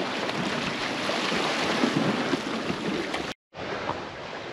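Steady rush of wind on the microphone mixed with waves washing over a coral-rock shore. It cuts out for a split second about three and a half seconds in and comes back quieter.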